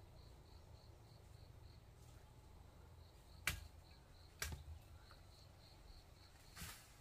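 Faint insect chirping, a high pulse of about four chirps a second that comes and goes. Midway there are two sharp knocks about a second apart, and a softer knock near the end.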